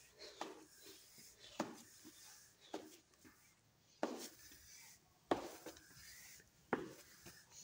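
Slow footsteps, about six, a little over a second apart, coming down tiled steps and onto brick paving.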